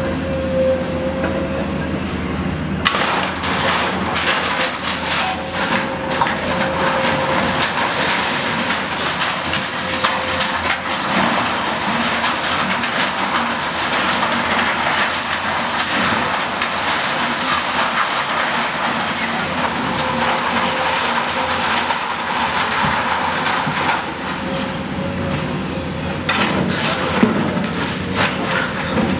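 Komatsu excavator engine running with a steady whine while its arm crunches and clatters through the wreckage of a timber and concrete building. The clatter of breaking debris starts about three seconds in and thins out near the end.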